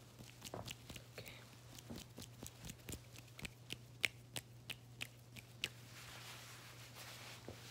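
Close-miked hand sounds: a run of sharp, irregular sticky clicks and taps, then a soft brushing hiss as a hand sweeps toward the microphone near the end.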